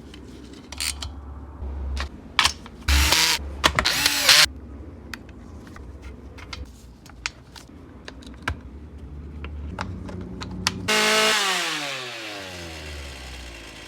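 A 38–41 cc two-stroke chainsaw engine running at a low idle, with short bursts of throttle about three and four seconds in. Near the end it revs up once and the pitch falls away as it slows back down.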